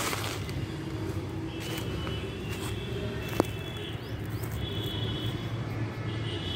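Outdoor background noise: a steady low rumble with faint high tones that come and go, and one sharp click about three and a half seconds in.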